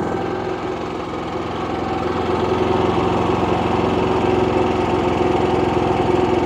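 Predator 9500 inverter generator's 459cc single-cylinder gasoline engine running steadily under light load, getting a little louder about two seconds in, just after its 240 V main breaker is switched on following a restart from an overload trip.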